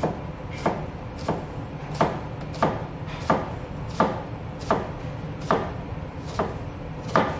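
Kitchen knife slicing a red onion half on a plastic cutting board, the blade knocking the board in a steady rhythm of about three cuts every two seconds.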